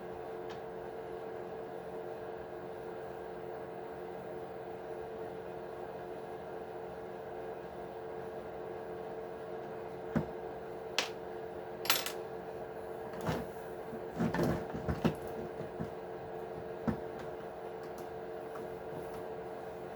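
A handful of small clicks, clinks and knocks, bunched about halfway through and ending a few seconds before the close: tools and small plastic and metal parts of an RC truck's front axle being handled during disassembly. Under them a steady hum.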